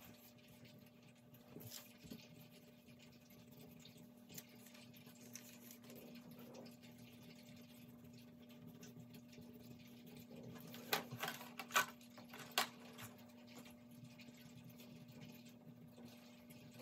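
Faint scratching of a marker tip on paper as outlines are traced, over a steady low hum. A little past halfway a few sharp clicks come as drawing tools are put down and picked up on the table.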